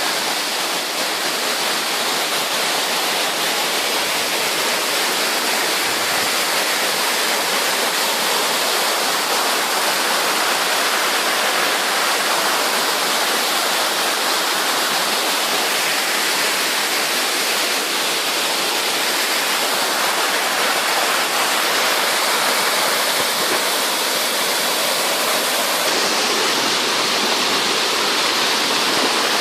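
Waterfall cascading over rock steps into pools: a loud, steady rush of falling water.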